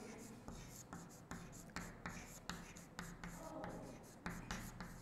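Chalk writing on a chalkboard: a quiet run of short scratches and taps as a word is written out stroke by stroke.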